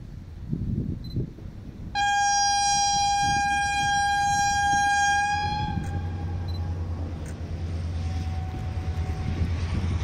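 Locomotive EGM 64-0962-2 sounding one loud, steady horn blast of about four seconds as it brings a long passenger train in, the blast starting suddenly about two seconds in. After the horn, the low steady drone of the approaching locomotive's engine.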